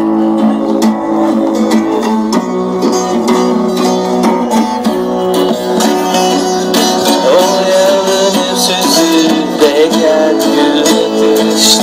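Instrumental passage of a Turkish folk song played on acoustic guitar and saz (bağlama), with a plucked melody over strummed chords and no singing.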